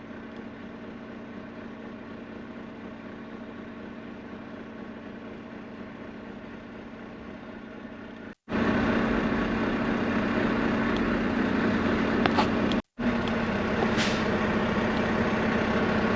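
Semi-truck diesel engine running steadily. About eight seconds in, it cuts abruptly to a louder stretch of the same steady engine sound, broken by another brief cut about four seconds later.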